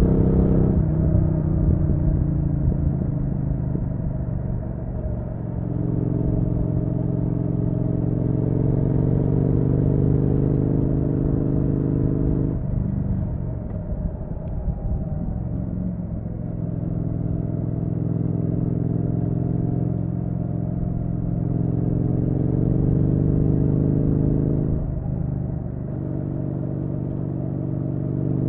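Triumph Street Twin's 900 cc parallel-twin engine running on the road, heard raw from the bike. The engine note falls from about a second in as the revs drop, then holds steady, with short breaks in the note about halfway through and again near the end.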